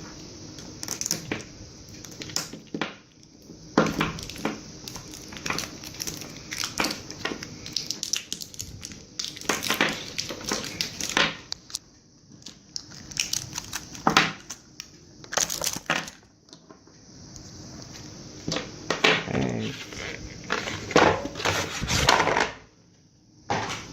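Plastic packaging being handled and crinkled, in irregular bursts of crackling and rustling with some sharper clicks and short quiet gaps.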